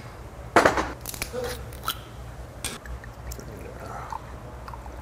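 Soju poured from a green glass bottle into a glass, a thin trickle that rises in pitch as the glass fills near the end. Before it, a sharp click about half a second in and a few light clinks and knocks of glass bottles being handled.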